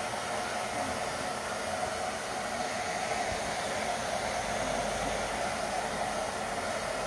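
Handheld hair dryer running steadily, blowing air on a small dog's damp fur.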